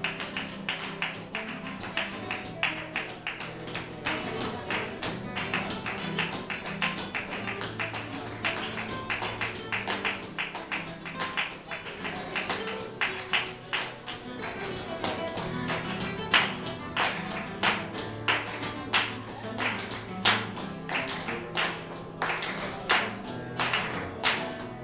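Live flamenco guitar playing with rhythmic hand-clapping (palmas) keeping the beat; the claps grow louder and sharper about halfway through.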